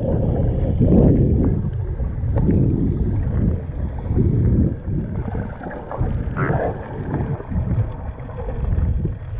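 Muffled underwater water sound: a deep, uneven rush that swells and fades, with no bright or high sounds in it.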